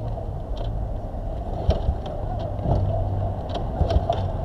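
Steady low hum of a running engine, with a few scattered clicks and knocks.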